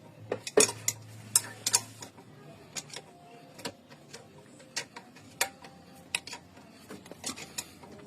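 Metal hand tools clicking and clinking irregularly against metal parts during work on a car's air-conditioning compressor, with a faint low hum in the first couple of seconds.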